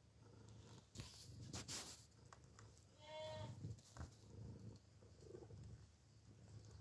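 Domestic cat purring in a low, steady rumble while kneading denim, with scratchy rustles of claws on the fabric and one short meow about three seconds in.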